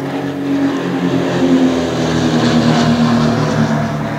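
Piper Seneca's twin turbocharged Continental TSIO-360 engines and propellers running as the aircraft passes low overhead, with a pulsing drone. The sound swells through the middle and the pitch drops slightly as it goes by.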